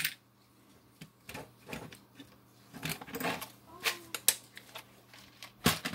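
Scattered clicks and light rattling of small parts being handled: copper washers in a plastic assortment box and a spark plug, the washers used for spark plug indexing. A sharp click opens it, the loudest sound.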